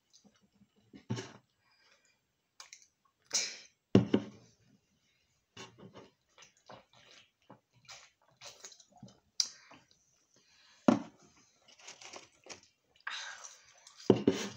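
Close-up eating and drinking sounds: chewing and mouth clicks, sips from drink cans, and a few loud sharp knocks against the table.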